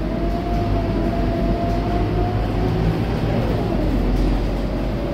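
Scania K230UB single-deck bus under way, heard from inside the passenger saloon: a steady low engine drone with a high whine that rises slightly, then fades about three seconds in.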